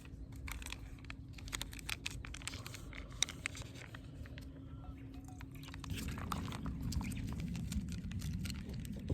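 Wood campfire crackling, with sharp irregular pops and snaps over a low rumble.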